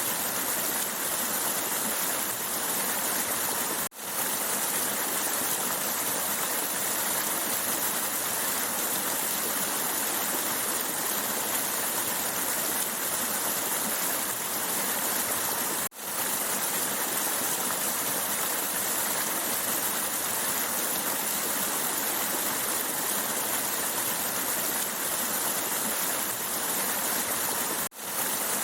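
Steady rush of running water, like a stream. The sound drops out for a split second three times at even intervals about twelve seconds apart.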